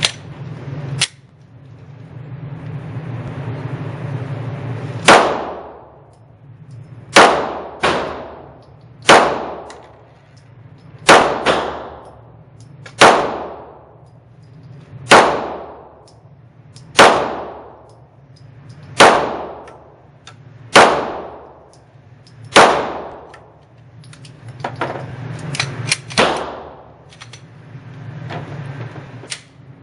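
Smith & Wesson M&P9 9mm pistol firing slow, aimed single shots, about a dozen, roughly one every two seconds. Each report rings out in the echo of an indoor range over a steady low hum.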